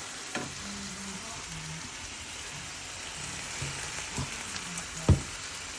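Ground beef with taco seasoning sizzling as it browns in a frying pan, a steady hiss, with a few light knocks; the loudest comes near the end.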